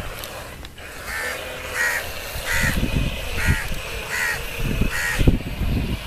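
A bird calling six times in an even series, about one call every three-quarters of a second, with wind rumbling on the microphone.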